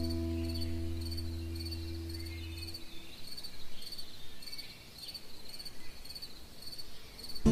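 A held background-music chord stops about three seconds in, leaving cricket-like insect chirping: short high chirps repeating in a steady rhythm.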